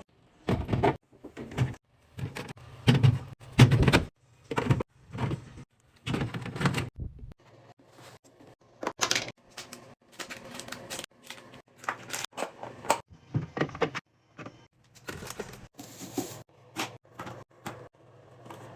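Kitchen restocking: irregular knocks, clicks and clatter of items being handled, opened and set down, loudest in the first few seconds.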